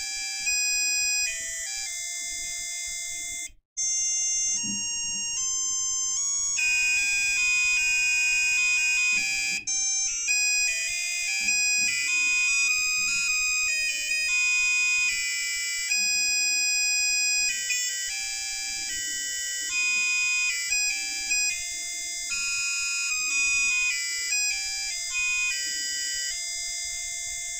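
Buzzer on an Arduino Nano doorbell circuit playing a programmed melody as a run of buzzy single electronic notes, with a brief break about three and a half seconds in.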